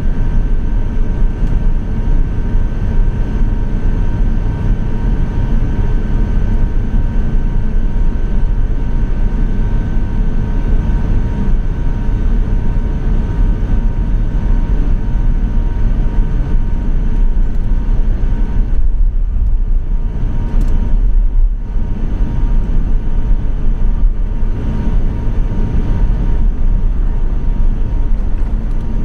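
Steady cabin rumble inside an Airbus A350-900 taxiing to the runway, with two faint steady whining tones over the low noise. The hiss thins out briefly about twenty seconds in.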